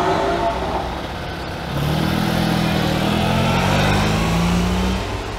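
Cars driving slowly past. A classic Fiat 500's small engine fades as it pulls away in the first second, then from about two seconds in a second car's engine runs low and steady as it drives by, rising slightly in pitch and fading near the end.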